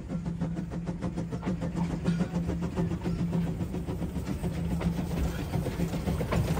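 Narrow-gauge steam locomotive running slowly with its coaches, with soft, evenly repeated beats over a steady low hum.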